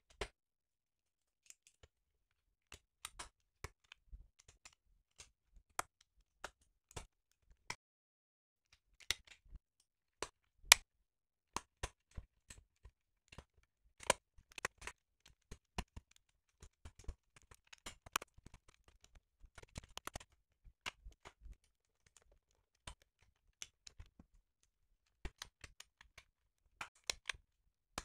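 LEGO plastic plates and tiles being pressed and snapped onto a baseplate by hand: irregular small plastic clicks and taps, with short pauses between them.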